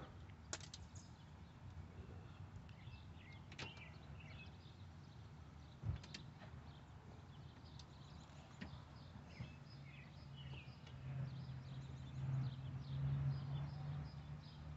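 Quiet outdoor background with faint bird chirps and a few sharp light knocks. A low hum swells in the second half.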